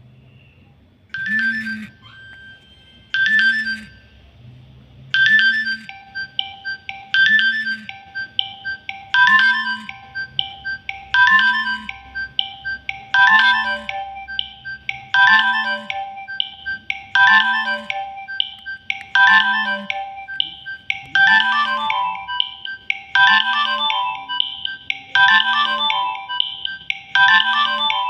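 Nokia 6080 mobile phone playing a ringtone: a short tune of several instrument parts that starts about a second in and repeats about every two seconds, growing fuller as more parts join over the first ten seconds.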